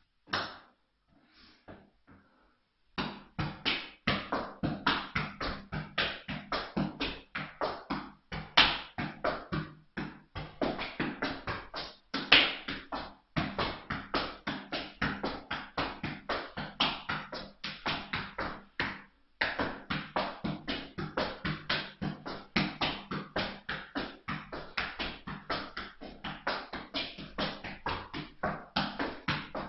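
Background music with a fast, steady beat, starting about three seconds in after a few faint knocks, with a brief break near the middle.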